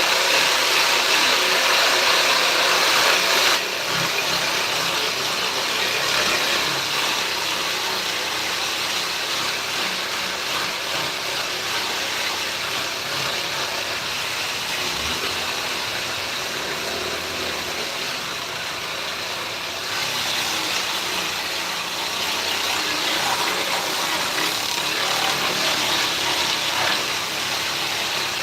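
A power tool running steadily, a little quieter from about three and a half seconds in and louder again from about twenty seconds in.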